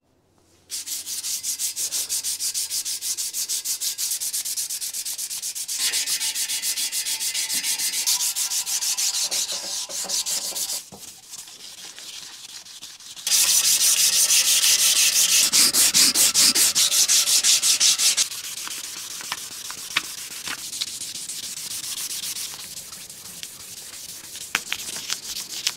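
Abrasive paper rubbed by hand back and forth over the stainless-steel exhaust pipes of a BMW E46 330Ci in quick, rasping strokes, sanding off surface corrosion to polish the metal. The sanding comes in several separate stretches that start and stop abruptly, loudest in the middle.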